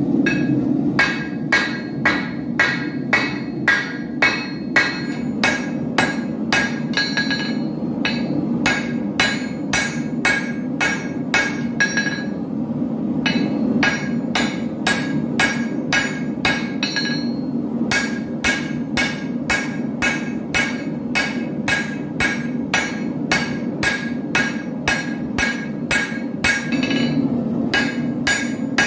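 Blacksmith's hammer striking a steel sword blade on an anvil, about two ringing blows a second with a couple of brief pauses, over a steady low rushing noise.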